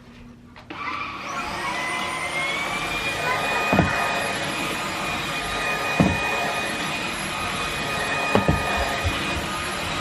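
Greenote GSC45 cordless stick vacuum switching on under a second in, its motor whine rising for about two seconds and then running steadily. Three dull knocks come through the motor noise, spaced about two seconds apart.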